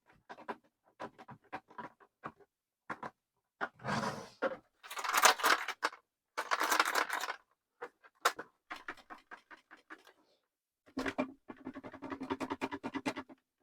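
Irregular clicks and taps of plastic speaker parts being handled and fitted together, with several short bursts of scraping or rustling a few seconds in and a fast run of clicking near the end.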